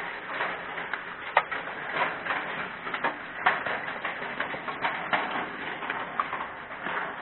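Hail and rain pelting a car: a steady hiss of rain with irregular sharp knocks of hailstones striking the car's body and glass.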